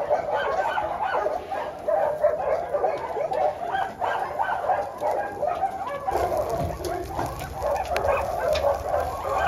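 Many dogs barking and yelping together in a continuous, choppy din.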